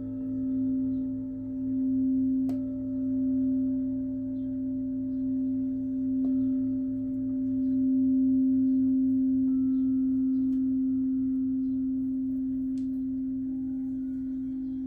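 Singing bowl ringing with a steady deep hum and a few higher overtones, its loudness swelling and fading in slow waves. Light taps a couple of times add fresh ringing overtones.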